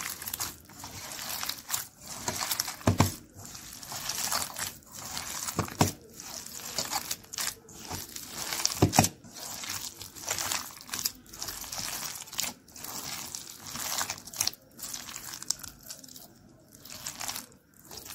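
A hand squeezing and mixing soaked flattened rice (chira) with mashed ripe bananas in a stainless-steel bowl: repeated short strokes, one or two a second, with three dull thumps about three seconds apart.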